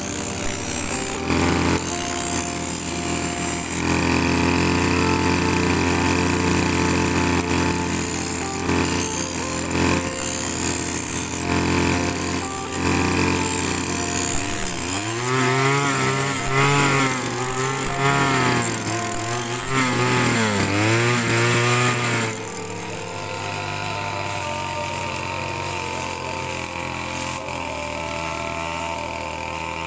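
A small petrol engine running hard, its pitch sweeping up and down again and again for several seconds as if working under load, then settling to a lower, steadier run about three-quarters of the way through.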